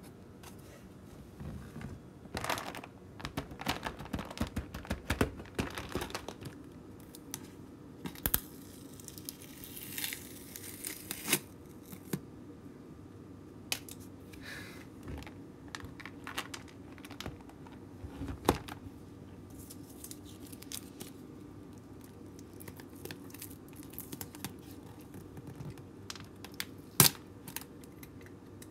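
Plastic tub of Temptations cat treats being handled: its clear film lid crinkles and tears as it is peeled back, among scattered clicks and rattles of the tub. Busiest in the first few seconds, with a longer tearing rustle around ten seconds and a single sharp click near the end.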